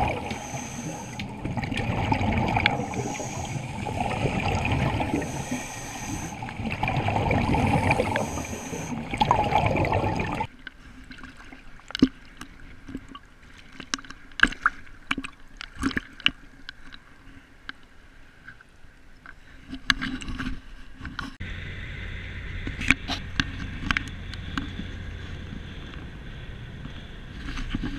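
Underwater, a scuba diver's regulator breathing and exhaled bubbles rush in surges every two to three seconds. About ten seconds in this cuts off to small splashes and clicks of water at the surface. From about twenty-one seconds on there is the steady low hum of a car running.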